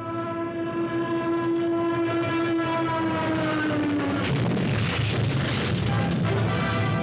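Cartoon soundtrack effect: a long, steady horn-like tone that sags in pitch about four seconds in, then gives way to a noisy, clattering rush.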